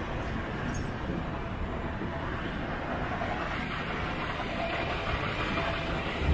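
Steady street traffic noise: a low rumble of cars and engines running, with a bus engine drawing close right at the end.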